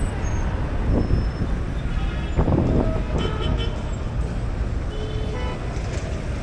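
Street traffic: a steady low rumble of engines, with short vehicle-horn toots about two to three seconds in and again about five seconds in.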